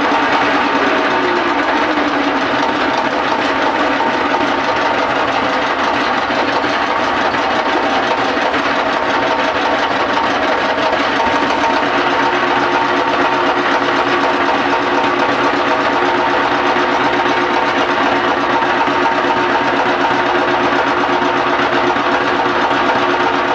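Boat engine running steadily at a constant speed: a loud, even mechanical drone.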